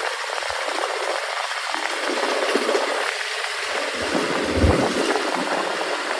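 Steady traffic and road noise heard from a motorcycle in city streets, with a low thump about four and a half seconds in.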